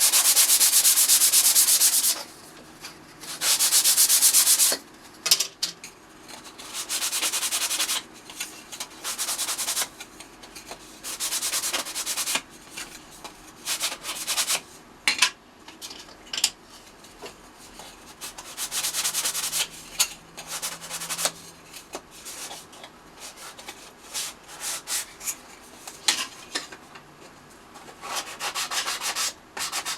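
Hand sanding thin 3 mm plywood pieces with a medium-grit sanding block: bouts of back-and-forth strokes, loudest in the first two seconds and again about four seconds in, with quicker short strokes near the end.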